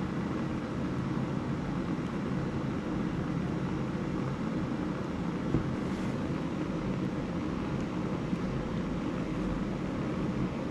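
A steady rushing noise, with one sharp click about five and a half seconds in.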